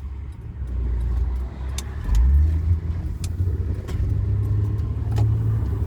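Car engine and road noise heard from inside the moving car, a steady low rumble that swells as the engine pulls harder about two seconds in.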